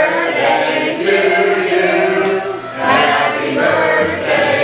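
A group of voices singing together in chorus, holding long notes in phrases.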